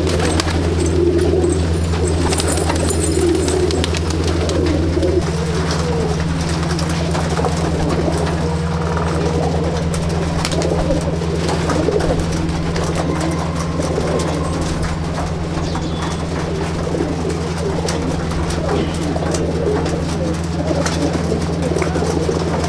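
Many Andhra tippler pigeons cooing together in a loft, a dense continuous chorus of coos, with scattered light clicks and a steady low hum underneath.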